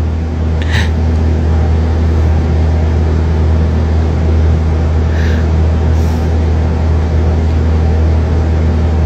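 A loud, steady low hum, like a machine or appliance running, with no speech; faint short sounds come about a second in and about five seconds in.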